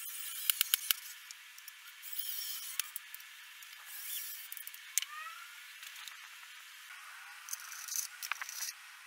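Cordless drill driving wood screws into a melamine tabletop in several short bursts, with sharp clicks and knocks of handling between them.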